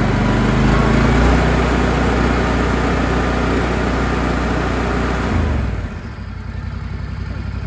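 Engine of a Canycom Arafo Keiko radio-controlled slope mower, throttled up by its hand lever to its maximum of about 3600 rpm and held there. About six seconds in it is throttled back and the engine sound drops.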